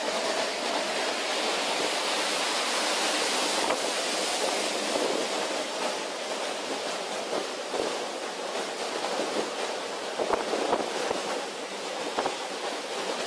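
Storm wind and heavy seas: a steady rushing of wind and waves breaking around a ship's bow, with a few louder surges near the end.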